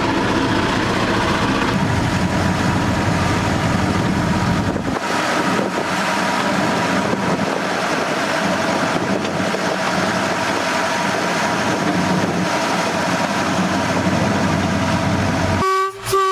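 Small miniature-railway diesel locomotive running along the track, its engine giving a steady drone heard from aboard the loco.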